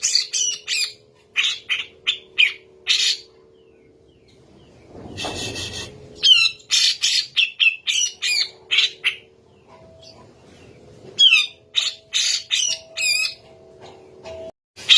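Cucak jenggot (grey-cheeked bulbul) calling in rapid phrases of sharp, high, sweeping notes. A harsh, noisy burst comes about five seconds in.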